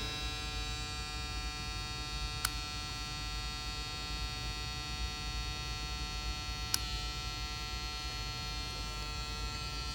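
Powered 13.8-volt electrical test board, with its motor circuit switched on, giving a steady electric hum and buzz with many overtones. Two sharp clicks about four seconds apart, from probing the circuit with multimeter leads.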